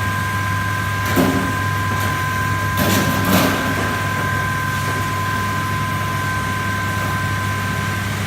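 Electric ice-cutting machine running steadily: a low motor hum with a thin, steady high whine, and brief clattering bursts about a second in and again around three seconds in.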